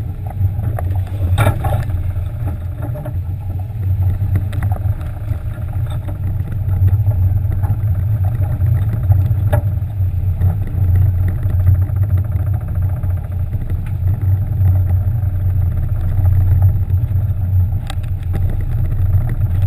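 Boat's engines running with a steady low drone, with a few brief knocks over it.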